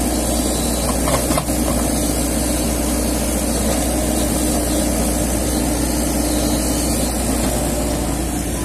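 Komatsu PC-78US mini excavator's diesel engine running steadily, with a brief knock or two about a second and a half in.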